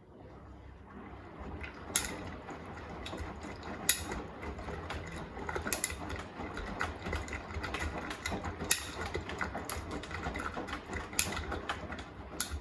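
Beko WTK104121A washing machine's drum turning the wet load through one tumble of about twelve seconds. It is a steady rumble and rattle with sharp clicks every second or two, starting about half a second in and dying away at the end.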